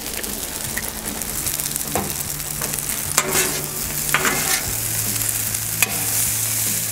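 Shredded hash browns sizzling in freshly added oil on a hot steel flat-top griddle, with a metal spatula scraping and turning them across the griddle surface in short strokes.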